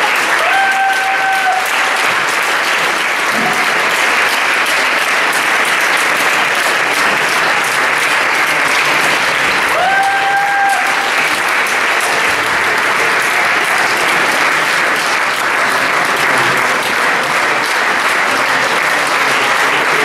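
Theatre audience applauding steadily, with two brief high calls rising above the clapping, about half a second in and again about ten seconds in.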